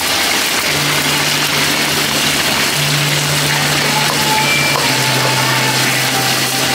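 Hot oil sizzling hard in a wok as seafood deep-fries, over a gas burner running at full flame, giving a dense, steady hiss. A low hum that shifts pitch a couple of times runs underneath from about a second in.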